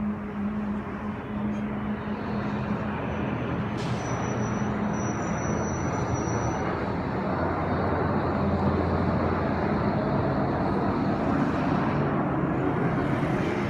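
Low droning hum over a steady rush of city traffic-like noise. The hum fades past the middle while the rushing noise grows louder, and a faint high whine comes in for a couple of seconds. The recorder takes it for the 'creaking of the earth'.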